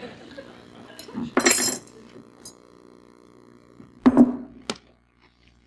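Glassware and dishes clinking and knocking on a set dinner table in a few separate sudden sounds, the loudest about a second in and about four seconds in. A sharp click follows, then the sound cuts out entirely.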